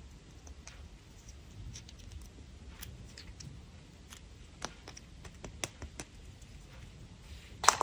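Hands handling sweet packaging: scattered light clicks and crinkles, with a sharper snap near the end.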